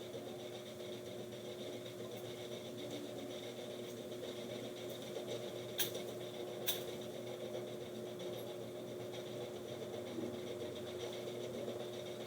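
Steady fan hum with a constant low tone, broken by two light, sharp clicks a little under a second apart near the middle.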